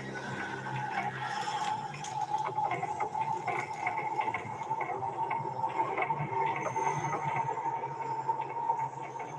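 Horror-film soundtrack played over a screen share: a steady drone with a held high tone, a low hum beneath, and scattered faint crackles and clicks.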